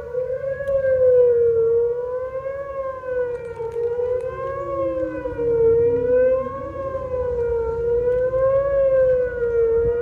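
Outdoor warning siren sounding a loud, steady tone whose pitch rises and falls slightly about every two seconds. A second, fainter siren winds down in pitch in the middle.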